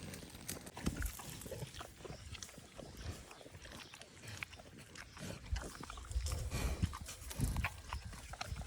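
Pig grunting: short, low grunts at irregular intervals, coming more often in the second half.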